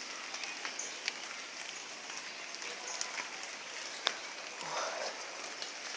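Steady hiss of falling rain with scattered ticks of drops striking nearby surfaces; one sharper tick about four seconds in.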